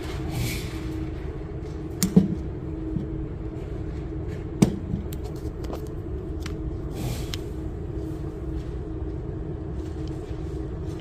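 Steady low hum of an indoor range, with a few sharp clicks and knocks from handling loaded pistol magazines and the pistol, the loudest about two seconds and four and a half seconds in.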